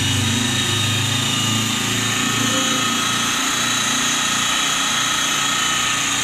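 Electric rotary polisher running steadily with its foam pad pressed against car paint, giving a constant motor whine over a low hum, as paint correction polishes out swirl marks and scratches.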